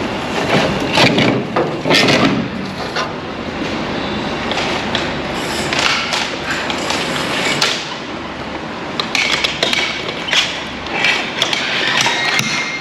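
Irregular knocks and clatter of plumbing equipment being handled, over a constant background noise.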